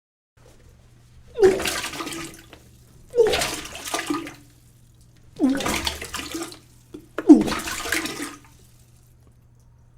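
A person vomiting into a toilet four times. Each heave opens with a short retching groan and runs into about a second of liquid splashing into the bowl's water.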